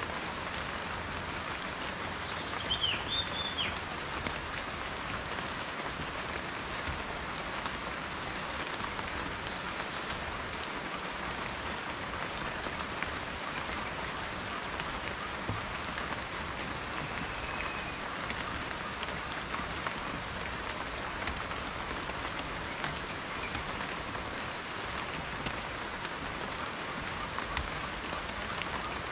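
Steady rain falling, an even hiss with scattered drop ticks. A few short high chirps sound about three seconds in.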